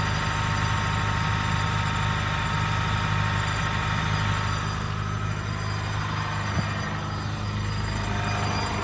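Honda Fit engine running cold, with a steady high-pitched squeal over its hum: the abnormal noise this engine makes when cold. The squeal weakens about halfway through.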